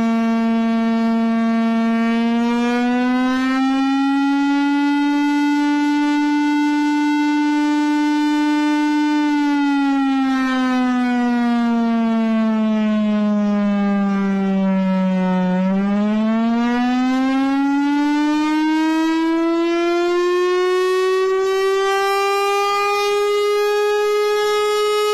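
Air-raid siren sounding the air-raid warning as one long wavering wail. Its pitch rises slightly and holds, sinks for several seconds, then climbs steadily to its highest note near the end.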